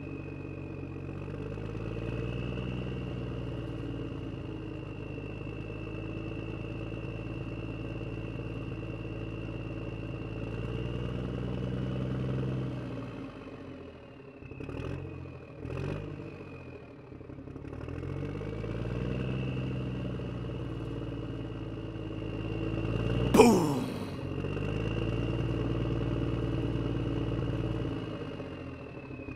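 Small electric gear motors of a Huina radio-controlled toy excavator whirring as the boom and bucket work, their pitch rising and falling in long swells over a steady high whine. The motors drop out briefly about halfway with a few clicks, and about three-quarters through a brief sharp squeak sweeps down in pitch.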